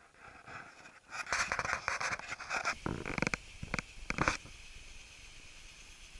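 Rustling and scraping of clothing and dry brush against the camera while walking through scrub, in irregular bursts for about three seconds, then cutting off to faint steady background noise.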